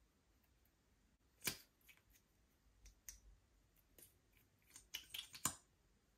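Scattered small clicks and taps from handling liquid lipstick tubes and their applicator wands as they are opened and dabbed on a glass plate. The loudest click comes about one and a half seconds in, and a quick run of clicks comes near the end, over near silence.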